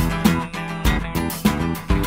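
Instrumental background music: a guitar strumming chords over a steady beat.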